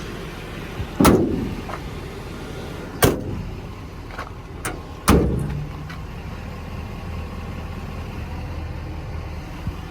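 Metal compartment doors on a service truck body slammed shut three times, about two seconds apart, with lighter latch clicks between. A low steady hum sets in after the last bang.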